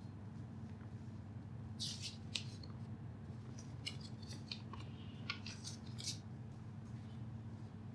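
A scattering of light, sharp clicks and scrapes from small hard objects being handled, clustered in the middle few seconds, over a steady low hum.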